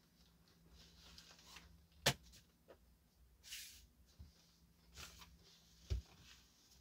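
Faint, scattered handling sounds of someone rummaging out of view: a sharp click or knock, a brief rustle, another click, and a dull thump near the end.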